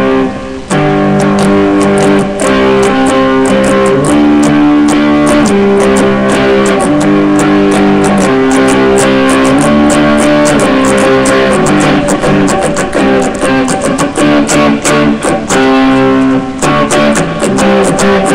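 Electric guitar playing power chords, strummed fast and steadily, moving to a new chord every second or two.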